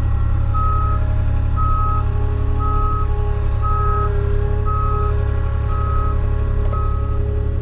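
Avant 860i compact loader backing up: its reversing alarm sounds a short high beep about once a second over the steady low rumble of its diesel engine.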